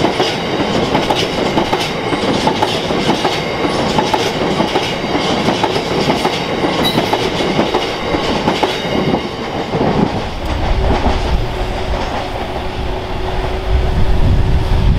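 Empty biomass hopper wagons of a freight train rolling over a level crossing, wheels clattering rapidly over the rail joints. About ten seconds in the clatter stops and a low rumble with a steady hum is left.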